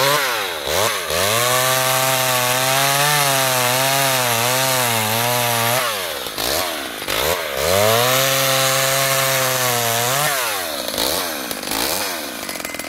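McCulloch Mini-Mac 35 two-stroke chainsaw running at full throttle while cutting through small tree trunks and branches. Its revs drop and climb back up about three times. Near the end it falls back to a lower, rougher idle.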